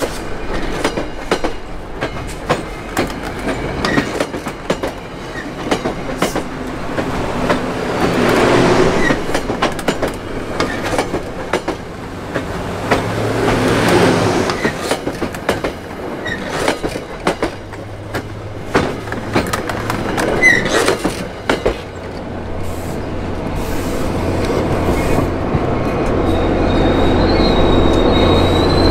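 MBTA commuter rail coaches rolling past, their wheels clacking irregularly over the rail joints. Near the end a high steady wheel squeal sets in.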